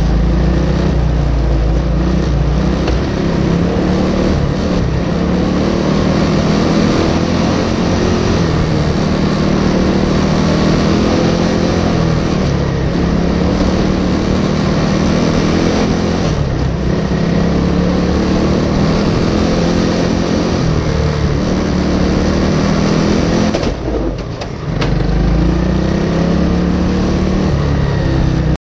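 Race engine running hard, its revs rising and falling throughout as the machine drives around the track, with a short dip in revs about 24 seconds in.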